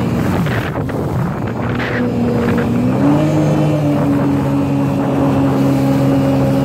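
Jet ski engine running at speed, its pitch stepping up about three seconds in and then holding steady, with wind buffeting the microphone.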